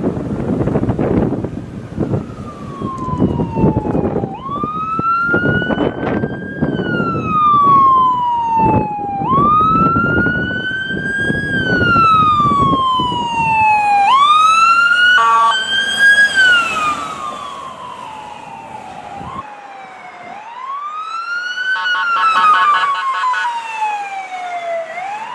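New York ambulance electronic siren sounding in a slow wail. Each cycle jumps up sharply, climbs to its peak and slides back down, about every five seconds. A low traffic rumble underneath fades out about halfway through, and brief rapid stuttering tones cut in twice.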